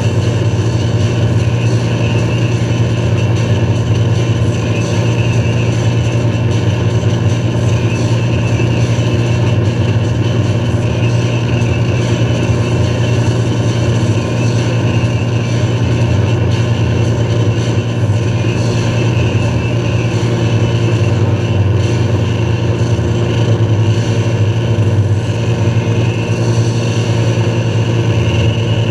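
Towboat's inboard engine running at a steady speed under load, a constant low drone, with the rushing water of its wake.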